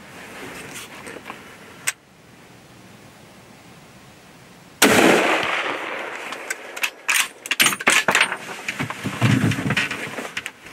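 A single loud gunshot about five seconds in, its report dying away over the next second or so, followed by a run of sharp clicks and rustles.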